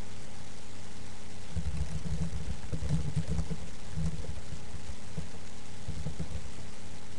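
Steady electrical hum and hiss from a webcam microphone, with a few seconds of irregular low rumbling bumps in the middle.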